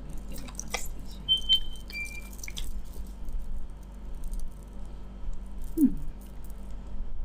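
Tarot cards being handled: a deck shuffled and a card laid down on a velvet cloth, making soft clicks, ticks and rustles. A couple of brief ringing clinks come about a second and a half in, and a short low falling sound comes near six seconds.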